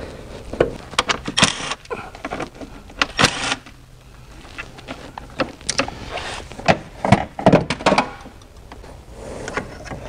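Irregular knocks, clunks and short scrapes of a replacement alternator being worked by hand into its mounting position in a car's engine bay.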